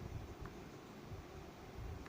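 Faint steady background hiss from the recording, with a few soft low thumps and a faint tick about half a second in.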